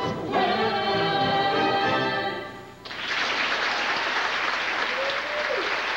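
Singers and pit band holding the song's final chord, which fades out about halfway through; the audience then breaks into steady applause.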